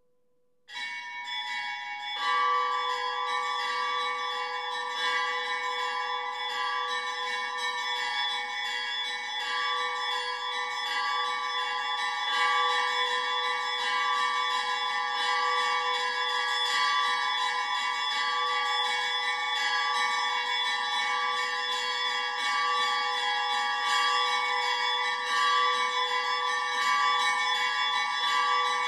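Church bells ringing continuously, many strikes overlapping into a dense peal that sets in suddenly about a second in.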